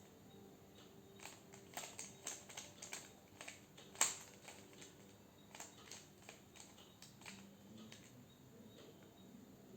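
Plastic clicking and clacking of a 3x3 Rubik's cube's layers being turned by hand, in quick runs of turns, with one sharper click about four seconds in.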